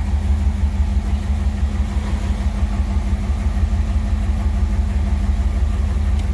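1957 Ford Thunderbird's Y-block V8 running at a steady idle, a low, even pulsing.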